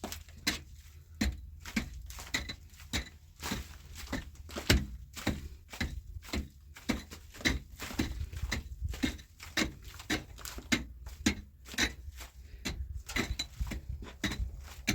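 Repeated sharp knocks and clicks, two to three a second and irregular, as something hard is struck or set down again and again.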